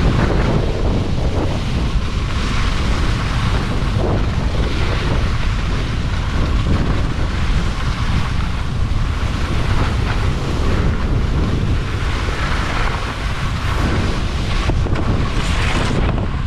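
Wind buffeting the microphone during a fast ski run, over a steady hiss of skis sliding on snow.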